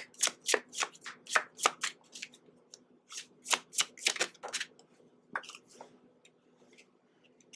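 A deck of oracle cards being shuffled by hand: two runs of quick papery card strokes, about three or four a second, with only a few strokes later on.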